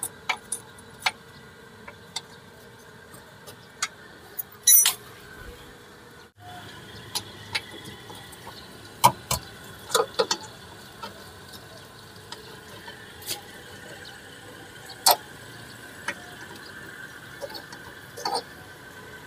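Scattered metallic clicks and taps from hand tools working on a rear drum brake's wheel cylinder and its brake-pipe fitting, over a steady background hum.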